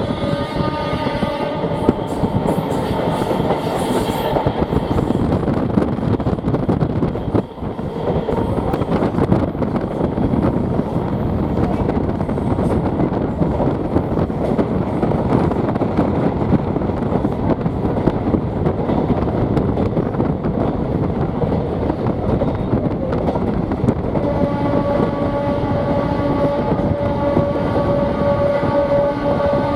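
Diesel-electric multiple unit (DEMU) passenger train running on the track with a steady rumble. It opens with a blast of its horn, and sounds the horn again in several long blasts from about six seconds before the end.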